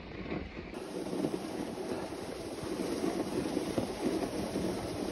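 Dog sled moving over a snowy trail: a steady hiss of the runners on snow with wind on the microphone and scattered light clicks.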